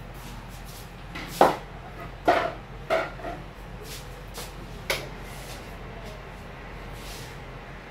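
Four sharp hand slaps of a head massage: three in quick succession, about a second apart, starting about a second in, and a last one about two seconds later. A steady low hum runs underneath.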